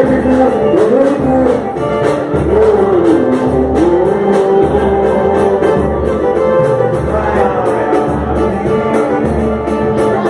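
Pagode music: a voice singing a wavering melody over a steady low drum beat that thumps about once a second.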